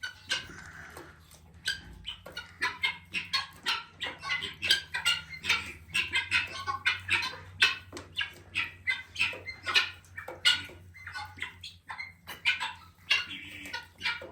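Guineafowl calling noisily in rapid, repeated harsh notes, with chickens clucking among them.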